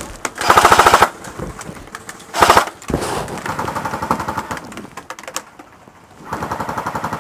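Airsoft electric guns firing full-auto bursts: a loud burst in the first second, a shorter one about two and a half seconds in, then quieter, more distant rapid fire, and another steady run near the end.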